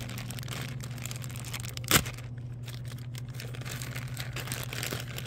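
Thin plastic Happy Meal toy bag crinkling and tearing as hands pull it open, with one sharp snap about two seconds in. A steady low hum runs underneath.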